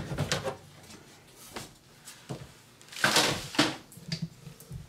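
Metal computer case side panel being handled: a few small clicks, then a short scraping slide about three seconds in, followed by a briefer one.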